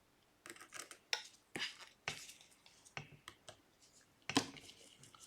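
Small repair tools clicking and tapping on an opened iPhone 12's internals, its screws and the metal plates over the flat-cable connectors: a scattered series of light clicks, the sharpest about four seconds in.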